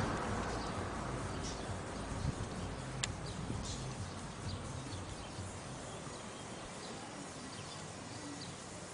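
Husky and kitten play-fighting: scattered soft paw taps and scuffles over a steady background hiss, with one sharp click about three seconds in.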